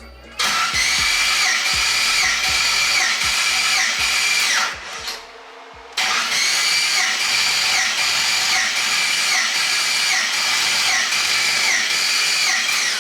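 Starter motor cranking the 5.3 LS V8, a steady whine with an even, slow rhythm, in two attempts separated by a short pause about halfway; the engine does not catch because the cam timing is off.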